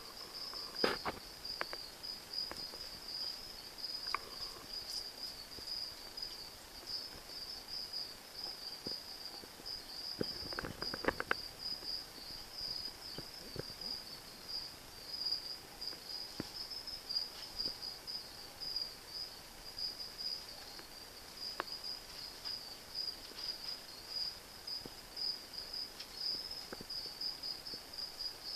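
Cricket chirping: a steady, high-pitched, pulsing trill with no breaks, and a few brief clicks and scrapes over it, the loudest cluster about ten to eleven seconds in.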